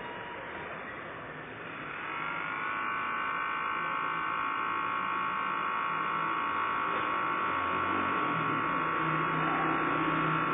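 Small electric motor of a 1/100-scale RC model barge, setting in about two seconds in with a steady whine that holds.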